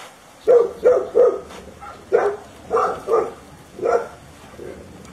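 A dog barking, about seven sharp barks in uneven groups of two or three, stopping about a second before the end.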